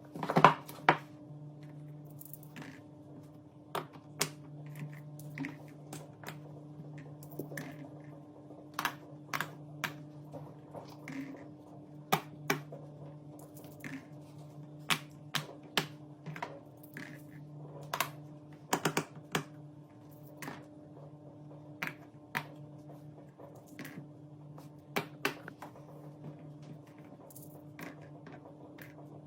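Irregular light clicks and taps from hands working with craft materials for a homemade pop-it fidget toy, some in quick clusters, over a steady low hum.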